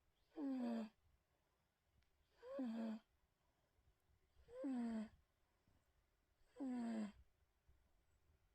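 A sleeping cat snoring: four snores about two seconds apart, each a short pitched sound that slides downward and settles on a low held note.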